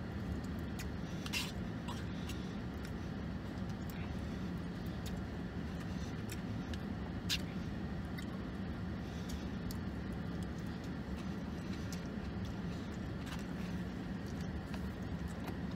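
Steady low hum of a car idling, heard from inside its cabin, with a few faint clicks and rustles as food is handled and eaten.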